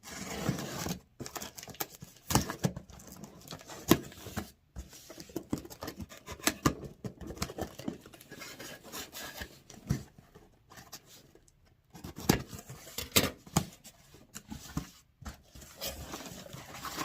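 A cardboard shipping box being opened by hand: irregular knocks, scrapes and rustles as the box and its flaps are handled, with a few sharper clicks standing out.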